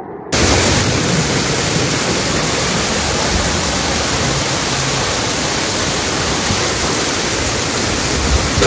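A flash-flood torrent of muddy water rushing down a street. It sets in abruptly a moment in and holds a loud, steady rush.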